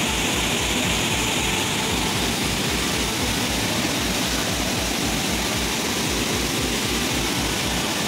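Steady roar of a swollen, muddy river rushing over rocks below a waterfall.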